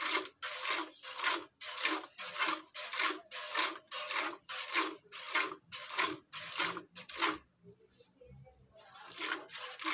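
Hand-milking a cow: jets of milk squirting from the teats into a stainless steel bucket, a regular hissing spurt about twice a second. The squirts stop for about a second and a half near the end, then start again.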